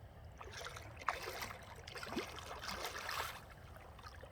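Faint water sounds: soft trickling and gurgling with scattered small splashes and clicks.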